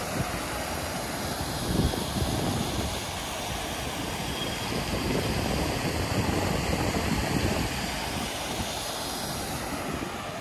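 Steady roar of city traffic on a busy square, mixed with the splash of a fountain, swelling a little around two seconds in and again in the middle.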